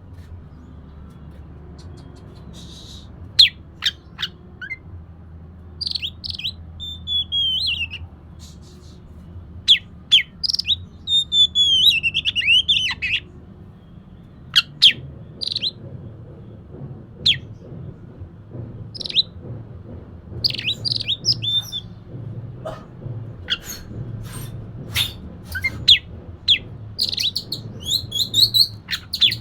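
Oriental magpie-robin (kacer) singing: loud bursts of whistled phrases with quick falling slurs and sharp, snappy clicking notes, separated by short pauses. A faint steady low hum runs underneath.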